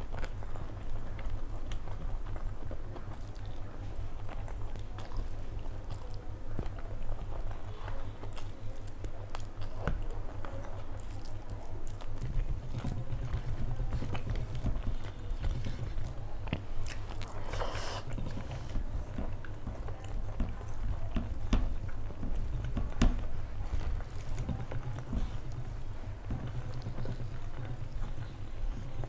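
A person chewing mouthfuls of rice and egg curry, eaten by hand, with small clicks from the mouth throughout. A brief louder noise comes about two-thirds of the way through.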